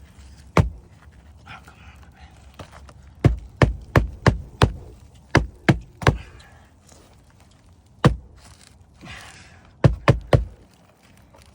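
Hammer blows driving a roofing nail through an asphalt shingle into the roof decking: a single blow, then a quick run of five, a run of three, and a few more spaced strikes. The nail is not holding well, which the roofer puts down to soft decking wood.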